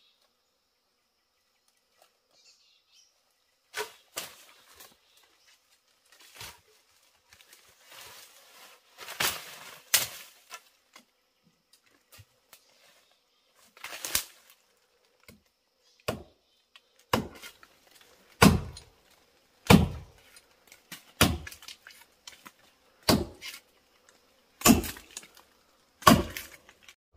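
Machete chopping into a tree trunk: a few scattered knocks with rustling at first, then from about halfway a steady run of about eight heavy chops, one every second and a half.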